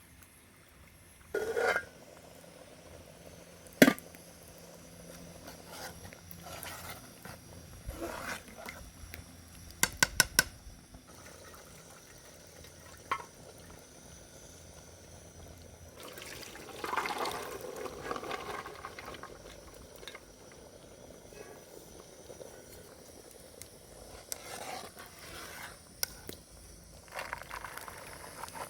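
Cooking sounds: scattered clinks and knocks of metal utensils and pots, with a quick run of clicks about ten seconds in and liquid moving in a pot.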